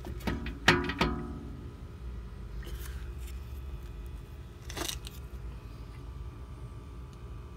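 Brake disc clinking and ringing as it is handled on the hub: three sharp metallic strikes with a short ringing tone in the first second, and a softer scrape near five seconds, over a steady low hum.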